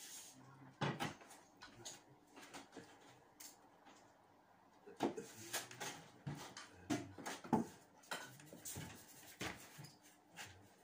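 Irregular knocks, clicks and scrapes of a hand tool worked against a plastered wall at the top of a door frame.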